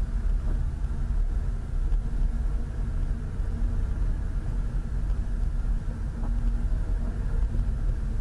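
Car driving with a steady low rumble of engine and road noise.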